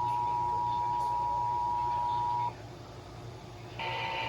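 Emergency Alert System two-tone attention signal, a steady dual-pitched beep, cutting off about two and a half seconds in. After a second of radio hiss, a harsh buzzing digital data burst starts near the end, the kind of burst that carries an EAS SAME header.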